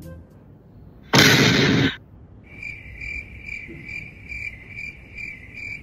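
A loud burst of noise about a second in, lasting under a second, like an explosion sound effect, then crickets chirping in an even pulse, about three chirps a second: the comedy sound effect for an awkward silence.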